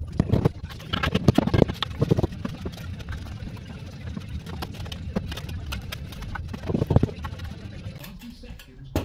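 Steel trowel scraping and knocking through bedding mortar in a metal wheelbarrow and on sandstone paving flags as they are laid, in bursts early on and again about seven seconds in. A steady low hum sits underneath.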